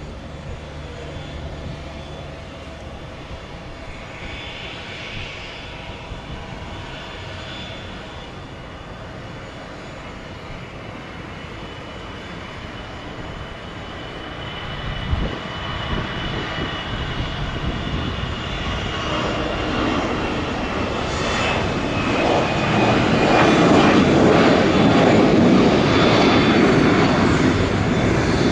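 Airbus A320 jet airliner taking off: engine noise builds steadily and is loudest over the last few seconds, with a high whine sliding slowly down in pitch as it passes.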